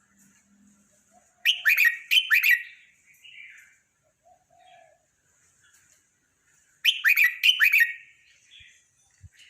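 Red-whiskered bulbul singing: two loud, quick phrases of several notes each, about five seconds apart, with softer calls between.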